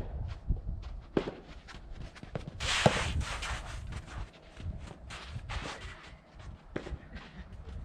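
Strong wind buffeting the microphone in a low rumble, with scattered short knocks and scuffs and a louder rushing gust about three seconds in.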